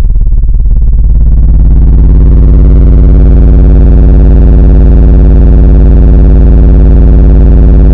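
An 18 Hz test tone played through a car audio system's two 18-inch subwoofers, very loud and picked up by the microphone as a steady distorted buzz. Its overtones fill in upward over the first two seconds, then hold steady.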